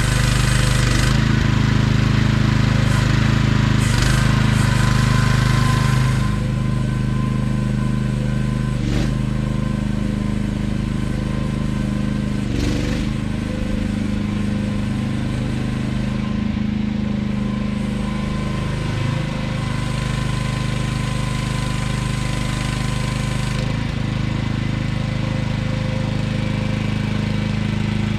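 AGT QH12R 1-ton mini excavator's small engine running steadily under work. It is louder for about the first six seconds, then settles to a lower steady level, with a few brief knocks along the way.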